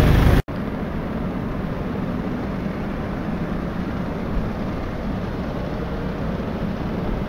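Outdoor wind buffeting the camera microphone: a steady rushing noise with a flickering low rumble, after a sharp cut about half a second in.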